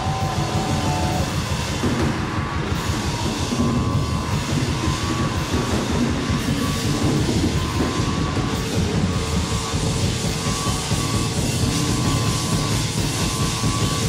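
Live rock band playing a loud, dense instrumental passage: a churning rhythmic low end under a wall of sound, with a few steady held tones coming in about halfway through.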